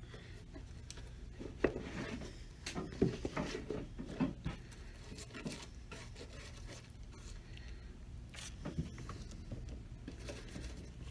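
Faint scratching and rubbing of a glue brush worked over the leather bottom of a shoe, with a few light clicks and taps, busiest in the first half and briefly again near the end.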